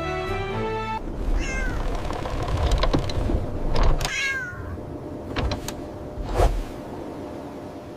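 Background music cuts off about a second in; then a cat meows twice, short calls falling in pitch, among scattered knocks and clicks.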